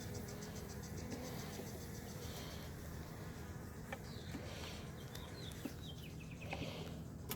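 Honeybees buzzing in a steady low hum around an opened hive, with a few faint clicks.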